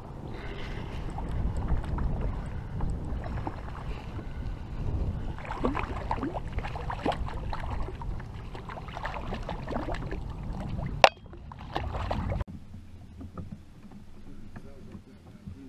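Water splashing and sloshing around a sit-on-top kayak, with small knocks on the hull and wind on the microphone, as a hooked largemouth bass is brought up alongside and landed. A sharp click comes near the end, then the sound drops suddenly to much quieter.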